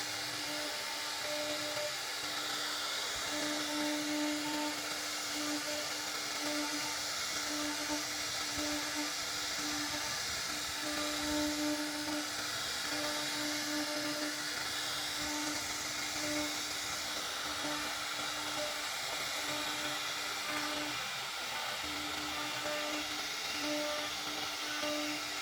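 CNC router spindle running at a steady high pitch while cutting wood, over a constant hiss of cutting.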